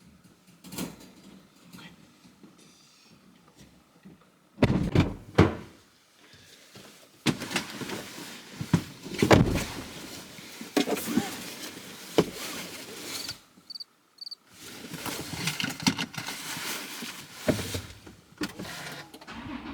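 A string of knocks, thuds and rustles in and around a car, with doors and objects being handled, and two short high beeps about two-thirds of the way through.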